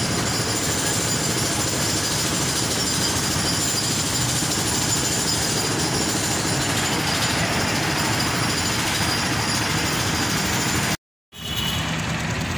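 Busy street traffic with a jeepney's diesel engine running close by, a dense, steady rattle and rumble. The sound cuts out abruptly for a moment near the end, then similar traffic noise resumes.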